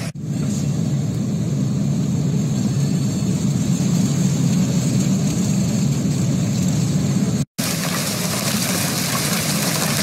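Hail pounding on a car's roof and windshield, heard from inside the car as a dense, steady roar. About seven and a half seconds in it cuts to hail falling on a street outdoors, a brighter hiss.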